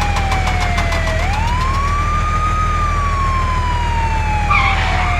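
Emergency vehicle siren wailing: a single tone falls slowly, swoops back up about a second in, then slides slowly down again, over a steady low engine-like hum.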